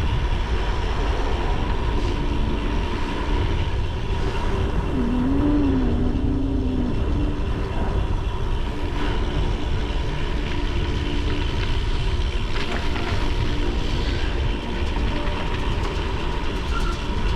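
Wind rushing over the microphone and bicycle tyres rumbling on a gravel road while riding, a steady low rumble with no breaks.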